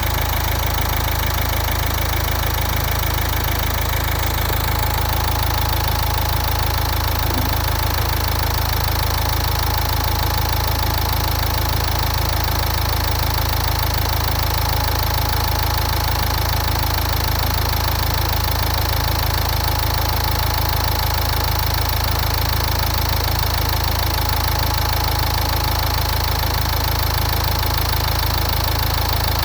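Nissan Juke engine idling steadily during a combustion-leak (head gasket) block test, with a constant low hum.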